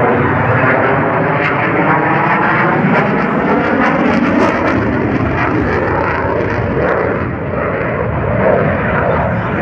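F-16 fighter's single jet engine passing overhead: loud, steady jet noise whose tones sweep slowly up and down as the aircraft moves across the sky.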